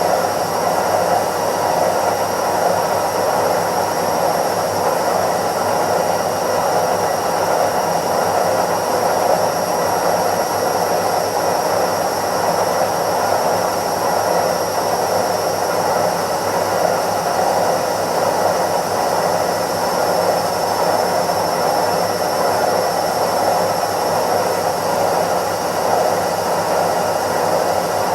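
Indesit IWC71252 washing machine on its spin cycle: the drum spinning at a constant speed, giving a steady rushing noise with a thin high whine held above it.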